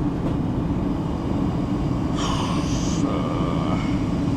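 Gas furnace running, with a steady low rumble from its ECM blower motor. A brief higher-pitched sound comes about halfway through.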